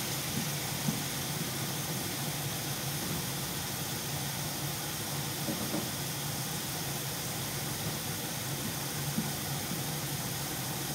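Hamburger patties frying in a pan, giving a steady sizzling hiss with a low hum underneath and a few faint clicks.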